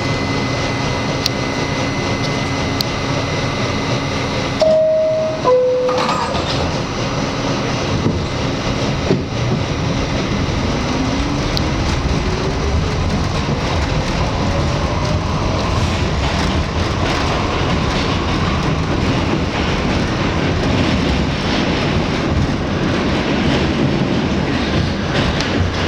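R68 New York City subway car: a two-note falling door chime sounds about five seconds in, then the train pulls away, its motors whining in a slowly rising pitch over the steady rumble of wheels on rails as it accelerates.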